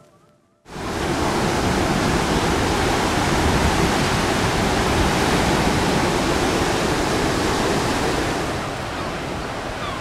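Steady rush of sea surf breaking on the beach, cutting in abruptly just under a second in and easing slightly near the end.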